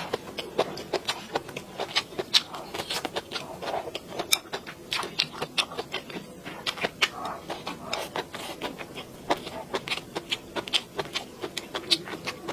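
Close-miked eating: chewing and crunching of a rice bowl with stir-fried bamboo shoots and pork belly, with many quick, irregular wet mouth clicks.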